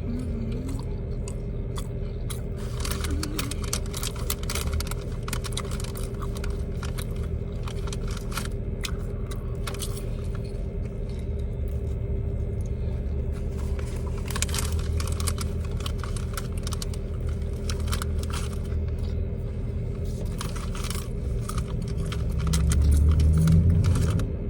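Close-up chewing and crunching of Popeyes fried chicken, with clusters of crisp crunches and clicks over a steady low hum. A louder low rumble comes near the end.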